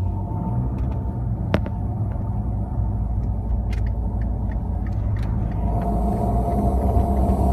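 Steady low rumble of a car driving, heard from inside the cabin, with a few sharp clicks. A faint droning tone fades out just after the start and comes back near the end.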